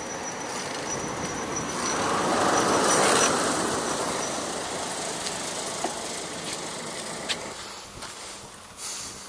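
A road vehicle passing by: its tyre and engine noise swells to a peak about three seconds in, then slowly fades away.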